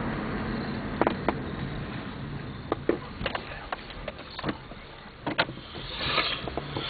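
A car driving, with steady road noise that slowly eases off. Scattered light clicks and knocks come through, and there is a brief swell of noise about six seconds in.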